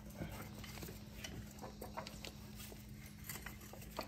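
Faint, irregular clicks and light taps of a metal scissor car jack being set in place and handled under a motorcycle's engine.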